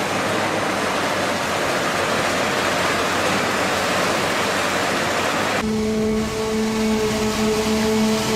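A steady rushing roar. About five and a half seconds in, it cuts abruptly to a steady machine drone with a constant hum.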